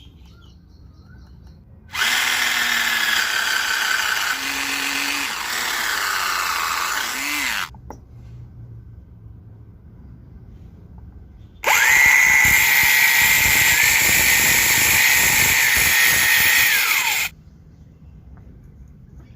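Electric power tool working wood in two runs of about five and a half seconds each, its motor whining. In the first run the pitch sags and shifts as the tool bites under load; the second run holds steadier until the tool is switched off and winds down.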